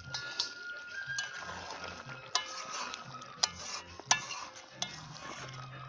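A spatula stirring chicken curry in a metal pan, with the curry sizzling. Half a dozen sharp clinks of the spatula against the pan are spread through the stirring.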